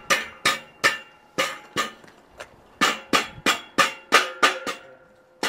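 Steel square tubing being knocked repeatedly as a ridge-beam joint is seated, each knock a sharp metallic clank with a brief ring; about three knocks a second, then a short pause and one last knock at the very end.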